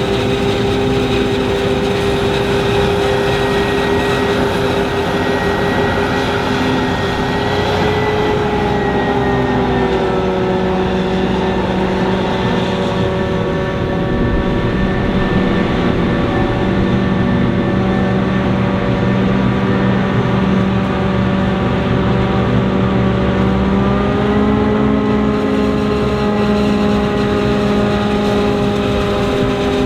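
Heavy diesel farm machinery working maize silage, running steadily and loudly with a strong droning tone. The pitch drops a little about a third of the way in and rises again near the end.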